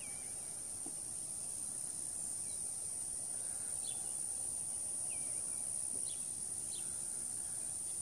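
Steady high-pitched insect chorus, with a few faint, short chirps from small birds scattered through.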